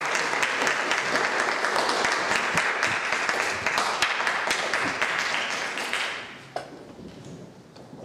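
Audience applauding. The applause dies away about six seconds in, leaving a quiet hall with a single sharp knock.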